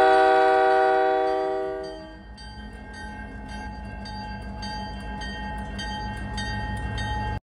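A diesel locomotive's air horn holds a chord of several notes, then fades away over the first two seconds. After it a bell rings steadily, about three strikes a second, over the low rumble of the train. The sound cuts off abruptly near the end.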